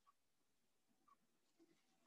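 Near silence: faint room tone, with a couple of very faint brief ticks.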